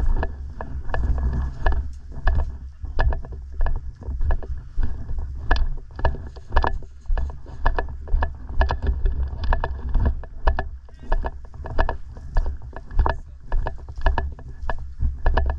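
Footsteps with clothing and gear rustling and knocking at a steady walking pace, about one and a half steps a second, over a deep rumble of wind or handling on a body-worn microphone.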